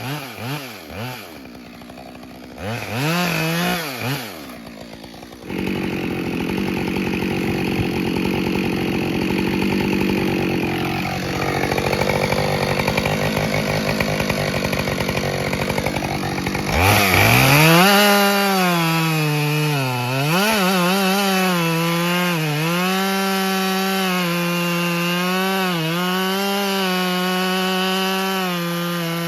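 Husqvarna 572XP two-stroke chainsaw with a 20-inch bar. It is throttled up and down, then cuts through an ash log under load for about eleven seconds from about five seconds in, then runs at high revs out of the cut with a few brief dips in pitch.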